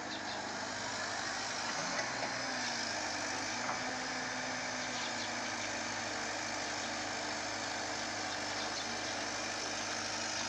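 Steady, continuous drone of heavy machinery at a stone-crushing plant: a diesel engine hum under an even mechanical noise, with a couple of small knocks in the first few seconds.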